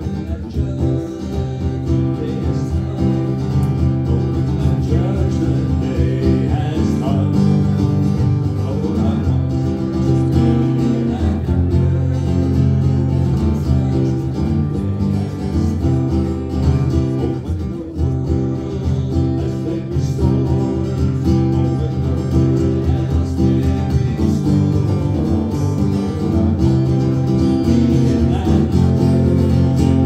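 Acoustic guitar strummed in a country-bluegrass style, accompanying a song.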